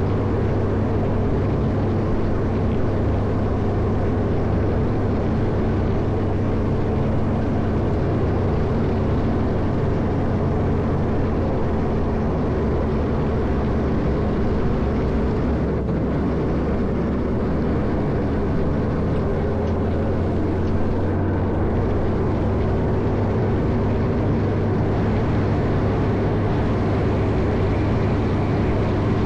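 Caterpillar 140M motor grader's diesel engine running steadily under load while plowing snow, a continuous even drone.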